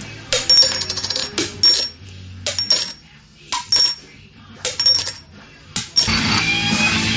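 A small metal coin dropped again and again, bouncing and clinking with a bright metallic ring, the first drop a quick rattle as it settles. Music starts near the end.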